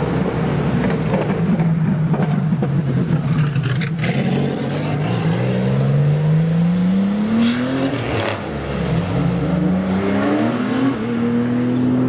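Porsche 993 race car's air-cooled flat-six pulling away, rumbling at low revs at first, then rising in pitch as it accelerates, dropping at a gear change about eight seconds in and rising again.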